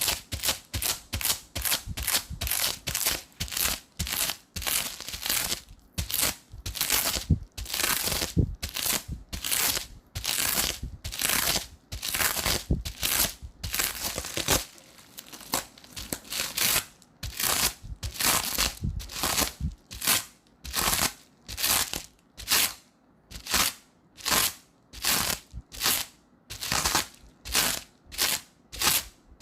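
Adhesive tape repeatedly pressed onto sticky glue residue and peeled off to lift it, each peel a short ripping sound, about two a second, with somewhat longer peels in the middle stretch.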